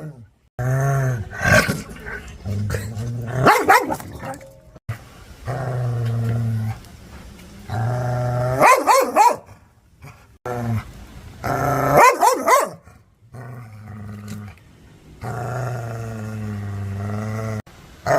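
Aggressive dog growling in long, low, steady snarls, broken every few seconds by loud, sharp barks.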